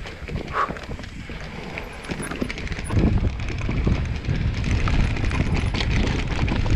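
Mountain bike being ridden over rough dirt trail: the bike rattling and clicking over bumps while the tyres rumble, louder from about three seconds in.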